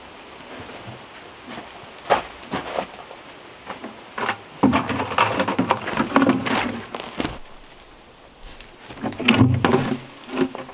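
Loose aggregate poured from a plastic bucket into a plastic mixing tub, a rain-like rushing rattle lasting about two and a half seconds from around the middle, with a second shorter burst of clattering near the end.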